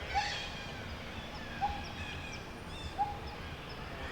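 Forest birdsong: a short, rising call repeats about every one and a half seconds, over fainter, higher chirps and trills from other birds.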